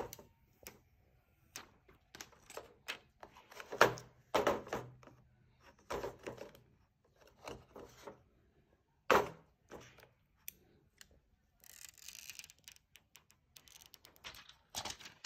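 Hands handling a smartphone and its cardboard box: scattered light taps, clicks and knocks of the phone and packaging, with a short stretch of rustling about twelve seconds in.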